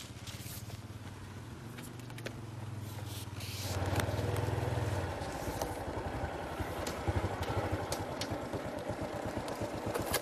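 Small underbone motorcycle's engine running at low speed as it rides up and stops, growing louder about four seconds in, with a few sharp clicks and scrapes in between.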